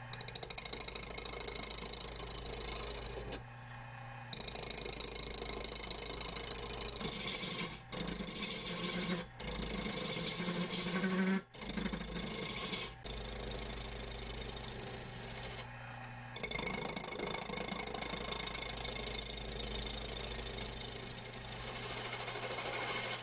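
Wood lathe running with a turning tool cutting a spinning wooden blank: a steady motor hum under a rough scraping, rasping noise, broken by several short gaps.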